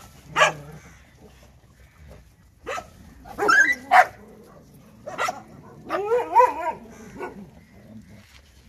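A pack of street dogs barking and yelping in short, sharp outbursts a second or two apart, with a longer, wavering yelp about six seconds in.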